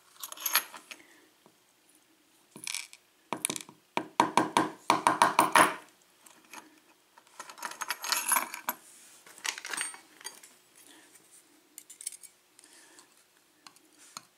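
Small metal lock parts clicking and rattling as the plug is drawn out of a BAB euro cylinder and its pin tumblers and springs are tipped out. The clicks come in scattered taps, with a quick run of them about four to six seconds in and another cluster around eight seconds.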